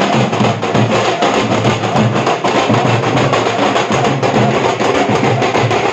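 Street drum band playing: metal-shelled marching drums beaten with sticks, along with cymbals, in a loud, dense, steady beat.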